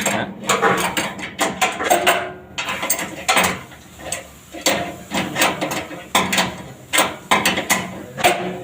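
Ratchet wrench clicking in irregular runs of sharp clicks as fasteners are worked during disassembly of a paint booth blower fan, over a steady low hum.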